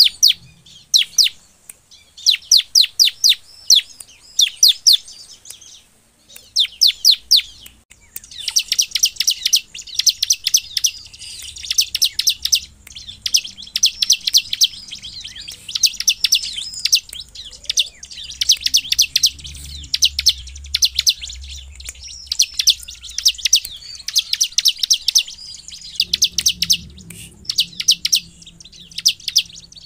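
Bar-winged prinia (ciblek) calling in rapid bursts of sharp, high repeated notes, each phrase lasting a second or two with short breaks between, coming almost without pause after the first few seconds: the fast, agitated 'nembak' calling that keepers use as a lure to set other ciblek calling.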